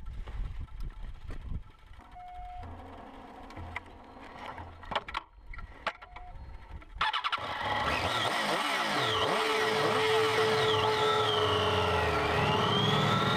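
Triumph Street Triple's inline three-cylinder engine starting abruptly about halfway through and then running, after a few light clicks and knocks before it.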